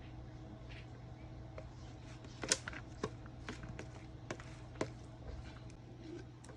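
Kitchen food-prep clatter: scattered light knocks and clicks of utensils, roughly one every half second in the middle stretch, over a steady low hum.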